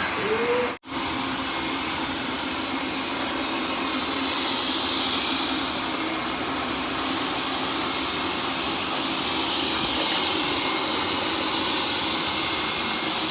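ILIFE A11 robot vacuum running, its suction fan giving a steady whooshing hum that starts after a brief cut about a second in.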